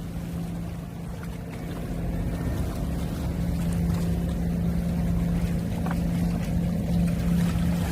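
A steady low engine hum with one constant pitch, over the wash of gentle waves; the sound grows a little louder over the first few seconds.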